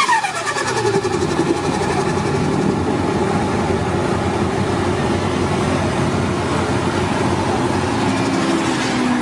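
Forced-induction car engine. A high whine falls steeply in pitch over the first second as the revs drop, then the engine settles into a steady idle.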